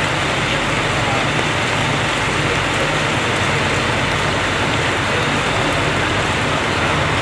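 Steady rain falling, with a low, steady engine hum underneath.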